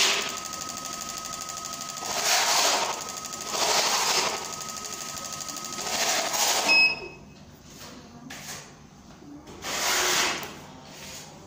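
Fuel injectors on an injector cleaner/tester bench firing rapidly and spraying into graduated cylinders, with a steady machine noise and louder swells every couple of seconds. The test stops suddenly about seven seconds in, with a short beep.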